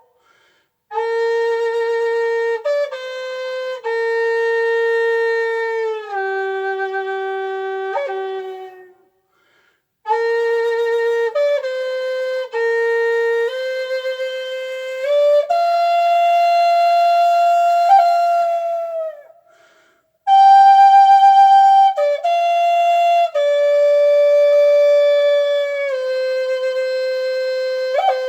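Solo flute playing a slow melody of held notes in three phrases, each followed by a brief pause.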